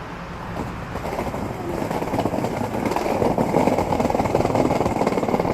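Skateboard wheels rolling on rough pavement, a gritty rumble that grows louder as the board picks up speed.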